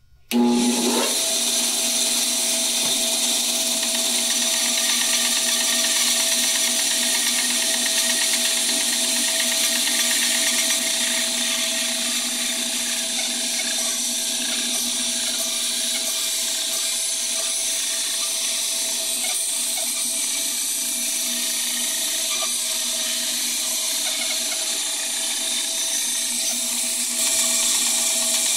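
Small benchtop band saw starting up and running steadily, its narrow blade cutting through a wooden board along a curved line. It gets a little louder near the end.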